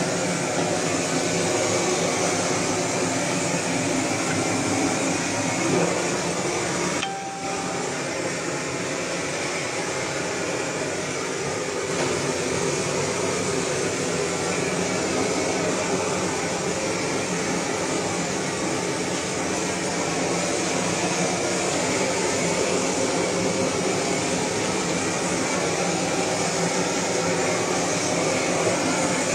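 Handheld gas blowtorch burning steadily as it singes the hair off a dog carcass, with a short break about seven seconds in.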